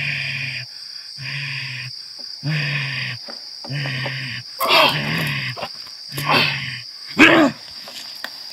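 A man's voice growling like an animal, in short held growls about once a second, then three louder roaring cries with the pitch swinging up and down in the second half. These are the sounds of a man in a trance that the group takes for jinn possession. Crickets trill steadily behind.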